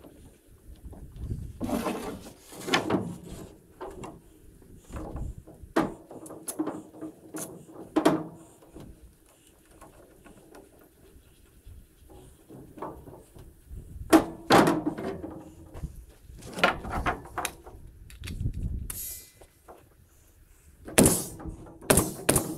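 Irregular knocks, clunks and scrapes of boards being shifted and set down on a work table, with a few louder thuds and some quieter gaps between.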